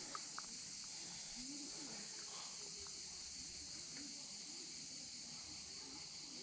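A steady, high-pitched chorus of insects drones in the forest, with faint, distant voices murmuring underneath and a couple of light ticks near the start.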